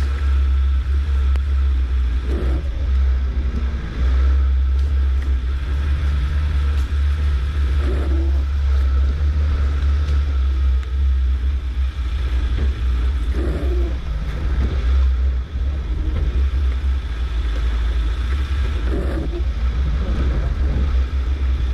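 1987 Suzuki SJ413 off-roader driving, its engine running steadily under a heavy low rumble, with a steady faint high whine running through it.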